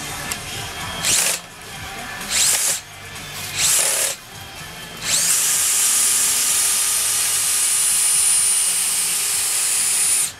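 Cordless power drill motor spinning up in three short trigger pulls, then running steadily for about five seconds before stopping.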